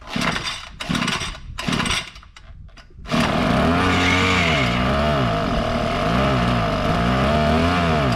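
Small engine of a KOSHIN EP-10P engine power sprayer, pull-started: three short bursts from the recoil starter, then it catches about three seconds in and runs with its speed swinging up and down, surging rather than settling. The owner suspects fuel is not getting through.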